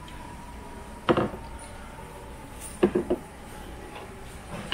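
Dishes and metal chopsticks knocking and clinking on the table: one sharp knock about a second in, then three quick clicks a little before three seconds.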